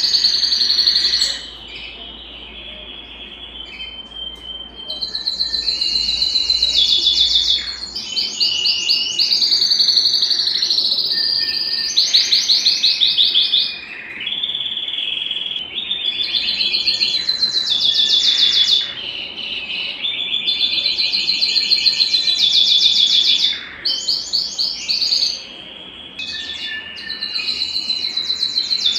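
Belgian canary singing: a long song of rapid rolling trills, the trill changing in pitch and speed every second or few seconds, broken by short pauses.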